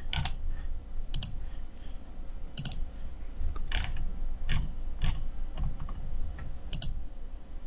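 Irregular, sharp clicks of a computer mouse and keyboard, about eight or nine of them spread unevenly, over a low steady hum.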